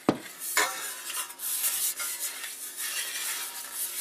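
Lawnmower recoil starter pulley turned by hand in its housing, winding up the recoil spring: a steady scraping rub with small ticks, a sharp click at the start and another about half a second in.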